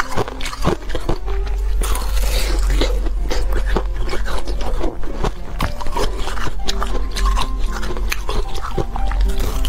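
A chunk of frozen ice being bitten and crunched between the teeth: many sharp, irregular cracks and crunches in quick succession, with chewing. Background music plays underneath.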